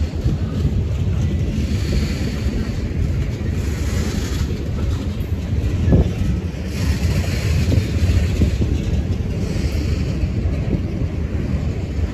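Continuous low rumble of a Norfolk Southern train's cars rolling past, with wind buffeting the microphone. A single sharper knock stands out about six seconds in.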